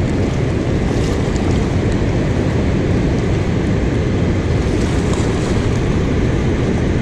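Steady rush of water released through a dam's open spillway gates, mixed with wind buffeting the microphone.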